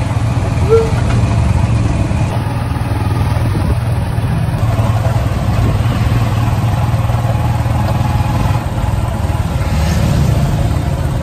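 Steady engine rumble and road noise from inside a moving passenger vehicle, heard from the passenger seat. A short squeak sounds about a second in.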